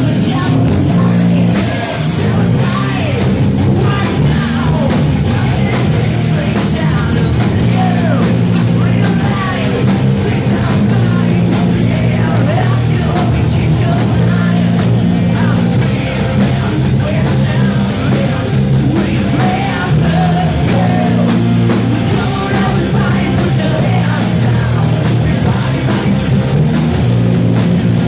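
Loud rock music with singing, played by a band: steady distorted low-end riffs with a vocal line over them.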